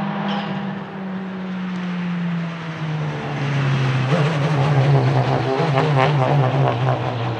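Volvo S60 Polestar TC1 touring car's turbocharged 1.6-litre four-cylinder engine passing at racing speed. The engine note falls in pitch about two and a half seconds in, and it is loudest as the car goes by close, about four to six seconds in.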